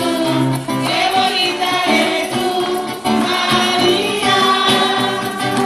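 A religious song: several voices singing together over instrumental accompaniment with a steady bass line.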